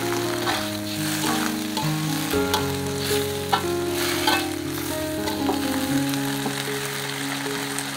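Water spinach (kangkung) stir-frying in an aluminium wok: a steady sizzle, with a metal spatula scraping and clinking against the pan several times in the first half. Soft music plays underneath.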